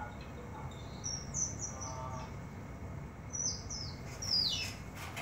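Otter chirping: two runs of short, high-pitched, downward-falling squeaks, about a second in and again a little after three seconds, the last ones the loudest.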